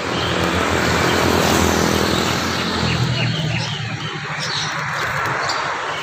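Steady background rumble and hiss like passing traffic, with a few short, high bird chirps about halfway through.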